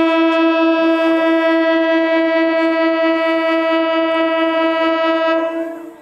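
Air horn of an old conventional EMU local train sounding one long, steady single-tone blast as the train approaches, cutting off near the end.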